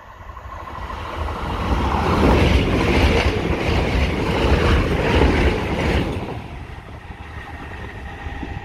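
Transport for Wales Class 175 diesel multiple unit passing at speed: engine and wheel-on-rail noise building as it approaches, loudest for about four seconds as the coaches go by, then fading as it runs away.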